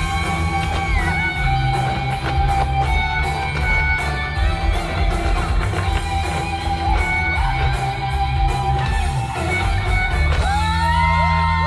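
Rock-style backing music with electric guitar and heavy bass, over which boots stamp out fast malambo footwork in short repeated strikes. Near the end the music swells into a louder held passage.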